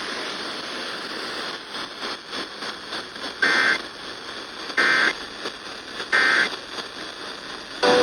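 FM radio hiss and crackle, then three short, loud data bursts about a second apart: the Emergency Alert System end-of-message (EOM) tones that close the alert.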